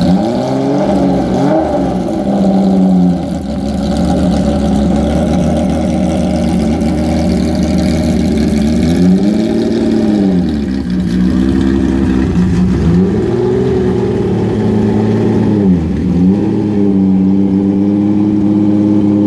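BMW M1 ProCar's race-tuned 3.5-litre straight-six idling, blipped on the throttle a few times so the pitch rises and falls, then settling into a steady idle for the last few seconds.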